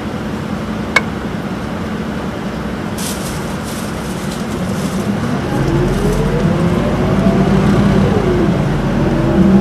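Isuzu Erga city bus heard from inside the cabin, its diesel engine idling while stopped, with a click about a second in and a short hiss around three seconds in. The bus then pulls away: engine noise grows louder and a whine from the drivetrain rises, falls and rises again as the torque-converter automatic shifts.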